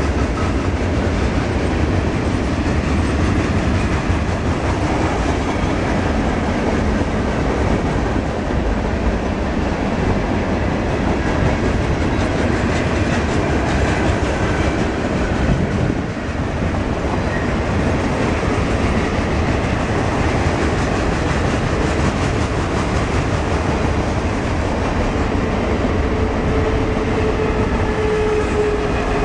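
Freight cars of a long mixed freight train rolling past close by: steady heavy wheel-on-rail rumble with the clickety-clack of wheels over rail joints. A faint thin whine comes in near the end.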